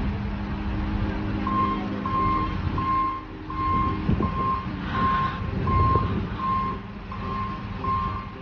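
John Deere 644H wheel loader's diesel engine running, with its reversing alarm starting about a second and a half in, beeping steadily about once every 0.6 seconds.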